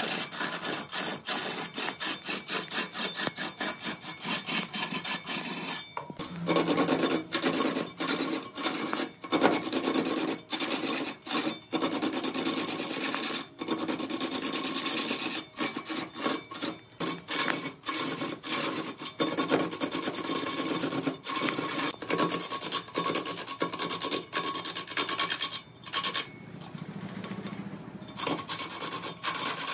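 A tool scraping and cutting into a spinning wooden workpiece on a wood lathe: a rough, rasping scrape broken by many short gaps, easing off for a couple of seconds near the end.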